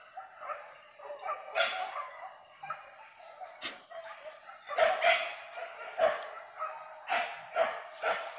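Hunting dogs barking in a run of short barks that come thicker and louder in the second half: the dogs on the chase of a wild boar.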